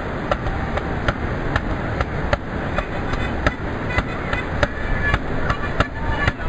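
A steady rhythm of sharp clicks, about two a second, made by a street performer with his cupped hands at his mouth, with short faint high notes between them.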